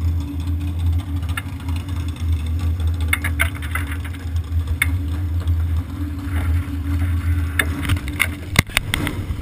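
Vintage supermodified race car's engine idling steadily, with scattered sharp ticks and one sharp knock near the end.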